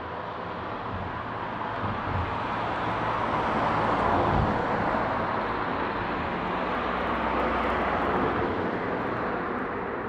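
A passing vehicle: a steady rushing engine hum that swells to its loudest about four seconds in, holds, then eases off near the end.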